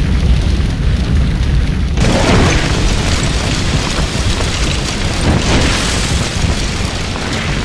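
Loud explosion sound effect: a deep, continuous rumble, then about two seconds in a sudden blast that opens into a dense, noisy rush.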